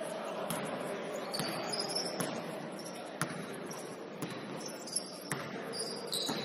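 A basketball bouncing on a court: sharp, irregular bangs about once a second over the general noise of the game.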